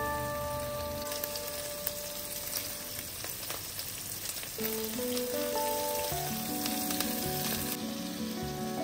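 Hot oil sizzling around minced-meat and cabbage patties frying in a nonstick pan, with soft background music playing over it.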